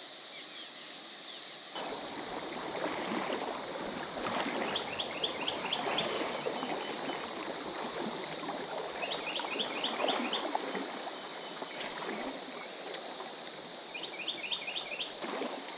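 A steady high drone of cicadas over flowing river water. A bird sings a quick run of about five falling notes three times.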